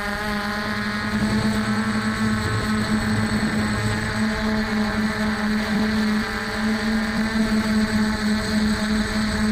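F450 quadcopter's brushless motors and stock propellers humming steadily in flight, one even buzzing pitch that wavers only slightly.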